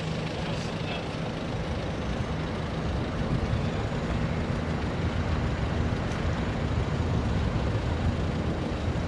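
Low, steady engine hum with a few held low tones, slowly getting louder.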